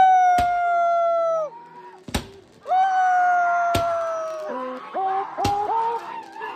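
Whistling fireworks: two long whistles of about two seconds each, the pitch easing slightly downward, then several short rising whistles, with four or five sharp bangs of bursting fireworks in between.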